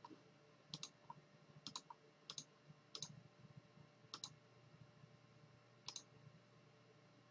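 Faint computer mouse-button clicks, about eight of them at irregular intervals over the first six seconds, each a quick press-and-release double tick.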